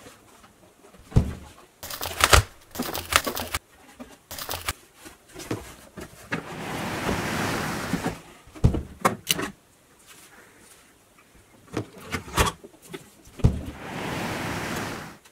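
Toy cardboard boxes and a large plastic egg being handled: a run of sharp clicks and knocks, with two longer scraping, sliding sounds.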